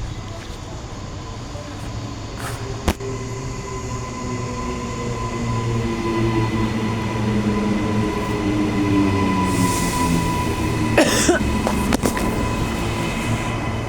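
Queensland Rail NGR electric multiple unit pulling into the station, its motor whine falling in pitch as it slows. A short hiss comes about eleven seconds in.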